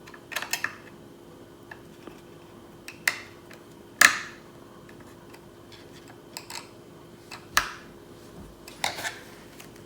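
Small tools and parts clicking and knocking as screws on an RC car's carbon fibre wing mount are loosened by hand: a handful of separate light knocks, the sharpest about four seconds in, over a faint steady hum.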